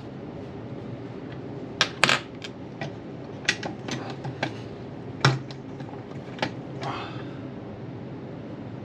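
Irregular sharp metal clicks and taps of hand tools against a transmission case as the shift-detent bolts are fitted, with a brief scrape near the end. A steady low hum runs underneath.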